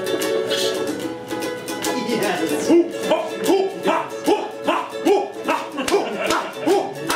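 Ukulele strummed in a steady rhythm, its chords ringing at first. From about two and a half seconds in, a wordless voice joins with short rising-and-falling hums in time with the strums.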